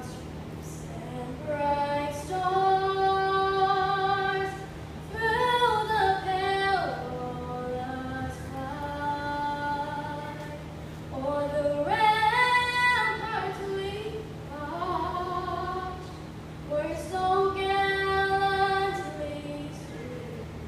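A young girl singing a national anthem unaccompanied into a handheld microphone, in long held notes grouped into phrases of a few seconds, over a steady low hum.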